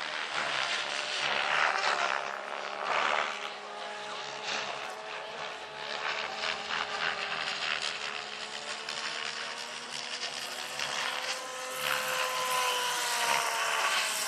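Electric-powered large scale model BO-105 RC helicopter flying: a steady whine from the electric drive and rotors whose pitch drifts slowly up and down as it manoeuvres. Near the end it is louder, and a whine slides down in pitch as it comes in low.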